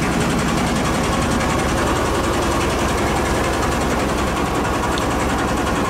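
Fishing boat's engine running steadily, with a fast, even chugging.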